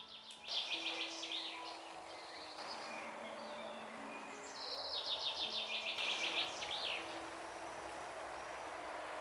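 A songbird singing two fast trilled phrases of rapidly repeated notes, each about two seconds long, the second near the middle, over a steady outdoor hiss; soft held music notes sound faintly underneath.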